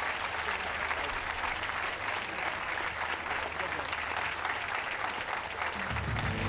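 Audience applauding with steady, dense clapping. Music starts near the end.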